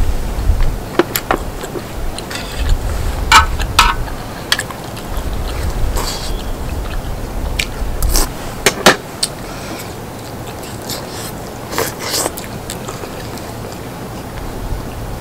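Close-miked eating sounds from a person eating spicy braised chicken stew: chewing with scattered sharp smacks and clicks at irregular times. A low rumble runs under it and fades after about nine seconds.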